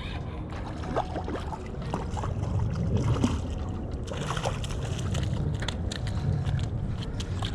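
Water sloshing and splashing as a hooked redhorse sucker is played in, over the steady rush of river current, with scattered light clicks.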